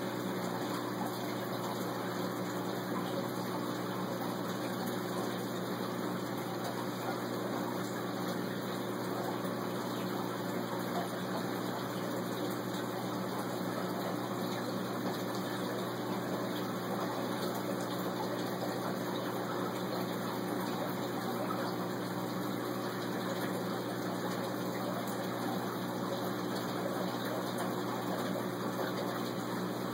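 Saltwater aquarium pond's circulation equipment running: a steady hum of pumps over the constant rush of moving water.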